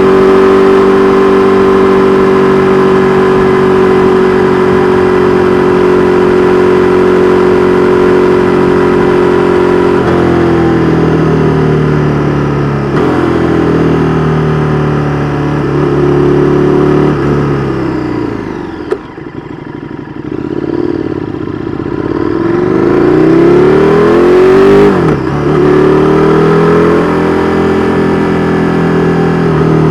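KTM 1290 Super Duke R Evo's V-twin through an Austin Racing V3 Mini exhaust, holding steady revs for about ten seconds. The pitch then rises and falls through gear changes and drops away as the bike slows past the middle. It climbs again in a hard pull that breaks off sharply at a shift near the end.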